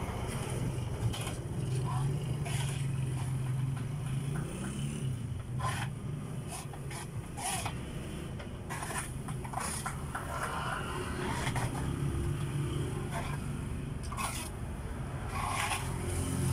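Mop scraping and knocking irregularly over a van's rubber floor mat, over the steady low hum of passing road traffic.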